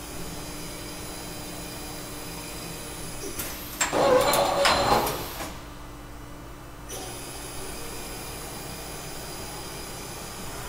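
Mori Seiki SV-500/40 CNC vertical machining center running through a program with no cutting, a steady hum with a constant tone as the table and spindle head traverse. About four seconds in comes a louder mechanical clatter and whir lasting about a second and a half, while the head moves up.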